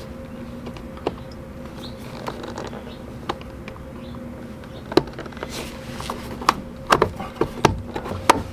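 Screwdriver tip clicking and scraping against the plastic snap-in water valve of a Dometic RV toilet while prying at its release tab. The clicks are scattered at first, then come thick and sharper with a few knocks in the last couple of seconds, over a steady low hum.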